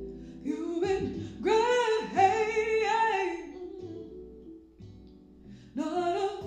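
A song playing: a woman singing over a soft instrumental backing. The voice sings a phrase, drops out for about two seconds, and comes back near the end.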